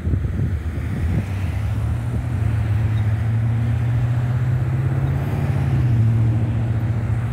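Cars pulling away and driving across the railroad crossing: a steady low engine and road hum that settles in after a second or so and drops slightly in pitch near the end.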